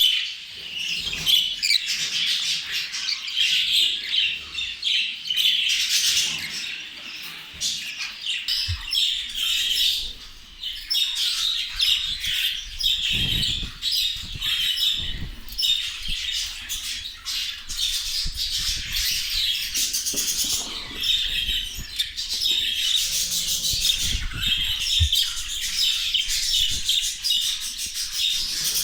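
A flock of budgerigars chattering, chirping and squawking continuously, with many calls overlapping. A few low thuds come partway through.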